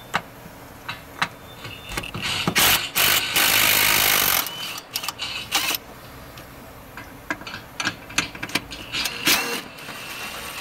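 Ratchet wrench turning a 12 mm socket on a long extension to undo the bolts and nuts of the air injection pump bracket: scattered clicks, with a dense run of rapid ratcheting clicks lasting nearly two seconds and shorter bursts later.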